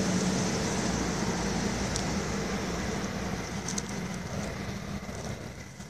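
Road traffic from a vehicle passing on the adjacent road, a steady rush of tyre and engine noise that slowly fades away.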